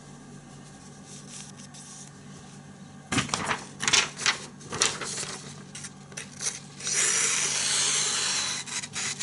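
A freshly sharpened knife handled and tested for sharpness: a few seconds of quiet, then a run of sharp clicks and knocks, then a steady scraping slice lasting under two seconds as the blade is drawn through a test material, then more clicks.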